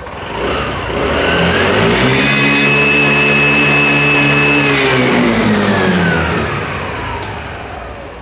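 TVS Jupiter BS6 scooter's single-cylinder engine revved once. The pitch rises over about a second and a half, holds steady for nearly three seconds, then falls back toward idle. It is running with a used BS4 silencer fitted in place of its blocked one, the fault behind its misfiring.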